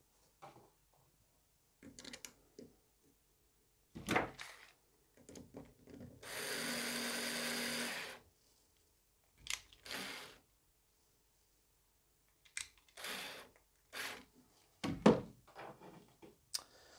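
Small cordless screwdriver runs for about two seconds, driving a screw into a plastic part, followed by two shorter bursts. Around it are clicks and knocks of parts and tools being handled, with a sharp knock near the end as a tool is set down on the wooden bench.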